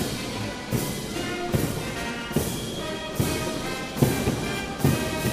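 Military brass band playing a march, bugles and brass holding the tune over a steady drum beat of a stroke about every 0.8 seconds.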